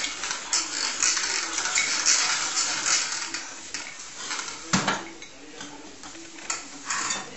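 Plastic baby push-walker toy clattering and rattling as it is pushed along, busiest in the first half. There is a single sharp knock just before five seconds in as it bumps into something, then only a few light clicks.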